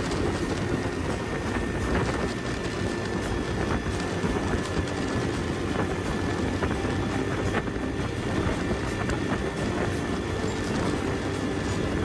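A small motorcycle's engine running steadily under way, heard from the rider's seat, mixed with wind and road noise and frequent small knocks from the rough road surface.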